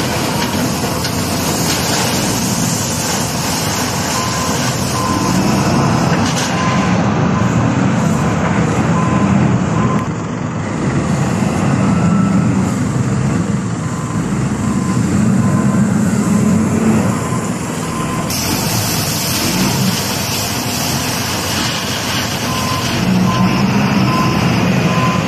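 Wheel loader working gravel: its diesel engine runs hard, rising and falling under load as it scoops and lifts, with gravel pouring from the bucket into a dump truck. A reversing alarm beeps in several stretches.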